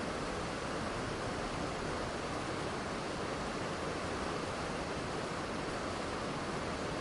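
Waterfall pouring steadily, a constant rushing of falling water with no change in level.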